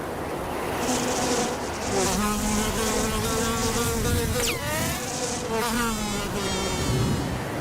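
Steady buzzing like a flying insect's wings, a low hum with wavering overtones, with one sharp falling glide about four and a half seconds in.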